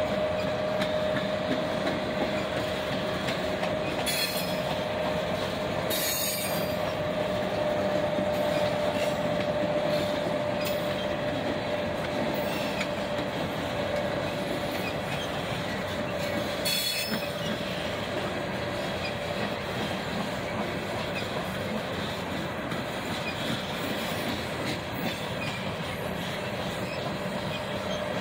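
A string of empty Norfolk Southern coal hopper cars rolling past, the wheels running steadily on the rails with a steady squealing tone. A few sharp clicks come through the rolling noise.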